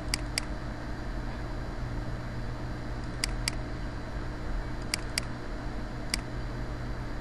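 Computer mouse button clicked: three quick double-clicks a few seconds apart, then a single click near the end, over a steady low hum and hiss.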